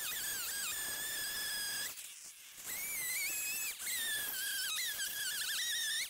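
Gas chainsaw cutting through a stack of slab wood: a high engine whine that dips in pitch as the chain bites and rises again when it frees. The whine breaks off briefly about two seconds in.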